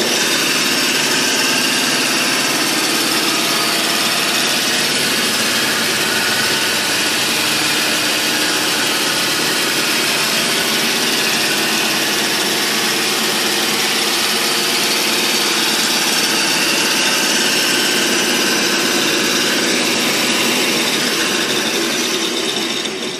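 Commercial meat band saw running with no load, its motor and blade wheels making a steady, loud mechanical whir. The sound starts to die away near the end.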